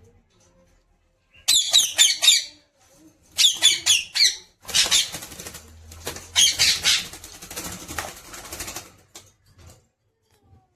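Pet parrot giving two short bursts of rapid, harsh squawks, then a few seconds of flapping wings.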